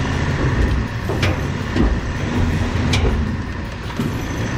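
The GI-1 tactical off-road vehicle's engine running under load as it climbs over rough dirt ground. Two sharp knocks come about a second in and again about three seconds in.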